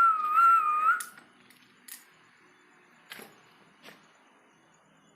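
A person whistling one wavering note for about a second, then a few faint sharp knocks.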